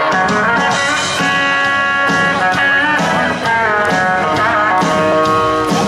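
Live country-rock band playing a song's guitar intro, with an electric guitar holding and bending notes over strummed guitars.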